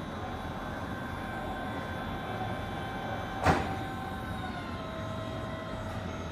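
Electric Flexi articulated forklift whining steadily as its hydraulic lift raises a pallet up the mast. A single sharp knock comes about three and a half seconds in, and the whine drops slightly in pitch about a second later.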